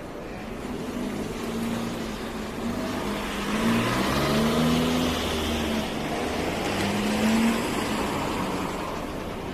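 A car driving past close by: its engine note shifts in pitch under the noise of its tyres, which builds to loudest about four to five seconds in and again near seven and a half seconds, then fades.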